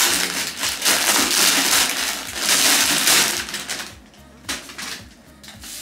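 Clear plastic wrapping crinkling and rustling as a rolled shower mat is pulled out of it and unrolled, fading to lighter rustling after about three seconds.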